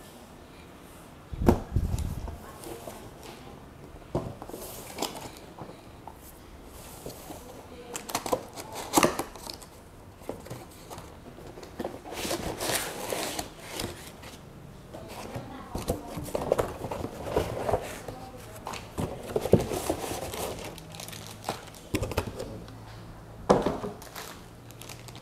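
Cardboard box and its packing being handled: a low thump about a second and a half in, then cardboard sliding and scraping with scattered knocks, and plastic wrapping and foam packing blocks crinkling and rustling, with a sharp knock near the end.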